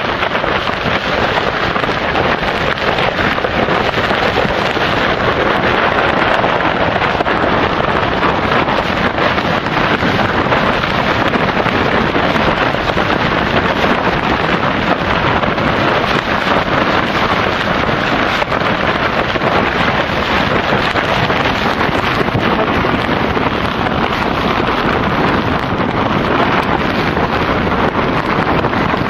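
Strong snowstorm wind blowing hard and steadily, rumbling on the microphone.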